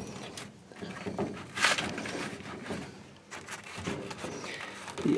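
Rustling and scraping as a pleated furnace filter is handled and pushed into the furnace's filter slot, with one louder scrape about a second and a half in.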